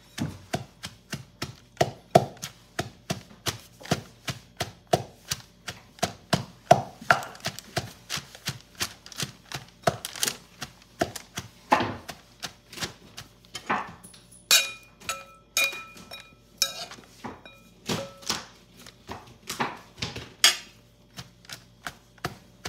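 Wooden pestle pounding shredded green mango in a metal mortar, a steady run of thuds at about two or three strokes a second. A few strokes in the middle leave a brief ringing tone.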